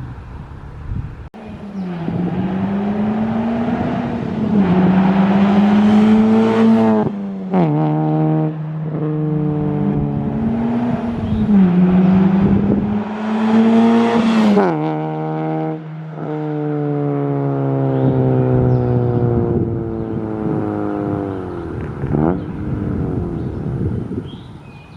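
Honda Civic with an Invidia exhaust accelerating through the gears. The exhaust note climbs in pitch, drops sharply at an upshift about 7 seconds in, climbs again, and drops at a second shift about 15 seconds in. After that it holds and slowly falls.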